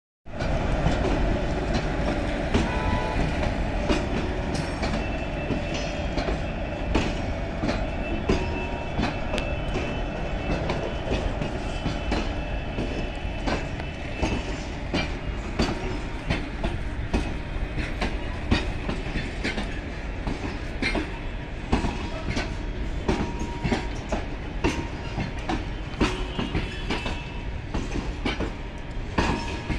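A train running past at close range: a steady rumble with many sharp, irregular clacks of steel wheels going over rail joints and points.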